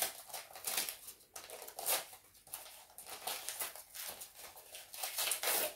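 Gift wrapping paper crinkling and tearing as a small present is unwrapped by hand, in a run of irregular rustles and rips that grow louder near the end.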